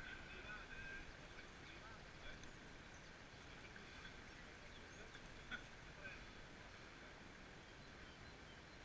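Near silence: faint outdoor ambience, with a single small click about five and a half seconds in.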